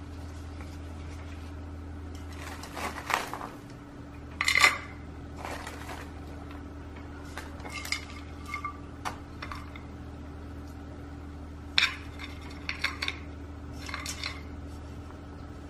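Terracotta clay pot handled on a plastic tray: irregular clinks, knocks and scrapes as it is tilted and set down and chunks of orchid bark mix are dropped into it, a few clinks ringing briefly. A steady low hum runs underneath.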